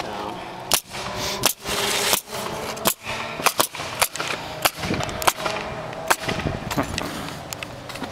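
Pneumatic roofing nail guns firing into the roof deck: a string of sharp shots at irregular spacing, at times several a second.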